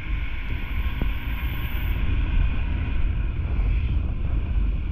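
Wind rushing over the microphone of a moving motorcycle, a steady low rumble with the motorcycle's engine and road noise beneath it.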